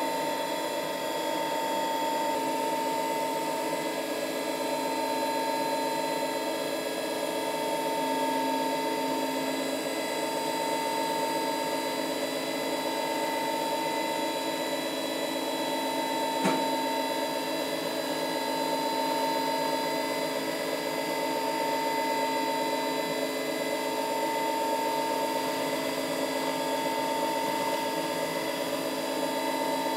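CNC milling machine spindle running with a steady whine while the end mill chews through a paint brush's bristles. One sharp tick comes about halfway through.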